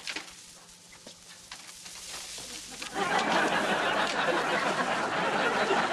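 Strings of a bead curtain clicking and rattling as a man pushes through it and gets tangled in the strands. About three seconds in, a studio audience starts laughing loudly and keeps on.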